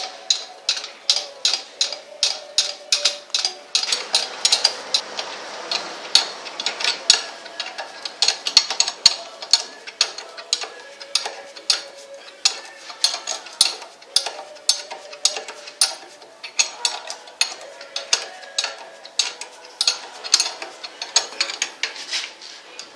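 Hand ratchet wrench clicking in a steady rhythm, about three to four clicks a second, as bolts are run in during clutch assembly. There is a brief scraping noise between about four and six seconds in.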